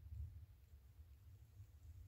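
Near silence: only a faint, irregular low rumble.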